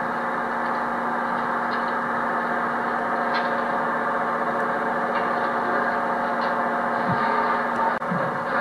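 Steady drone of a running engine, holding one even pitch, with a few faint clicks over it.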